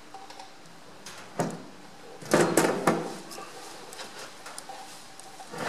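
Metal clunks and knocks of a Ferguson tractor's crown wheel carrier being worked into the rear axle housing by hand: one sharp knock, then a cluster of louder clanks about halfway through.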